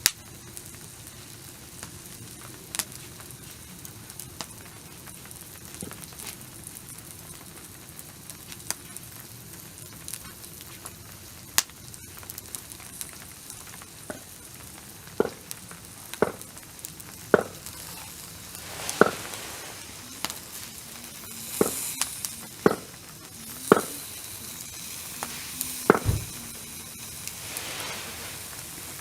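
Food sizzling and spitting on a barbecue grill, with sharp pops that come about once a second from the middle on and a few short hissing flare-ups near the end.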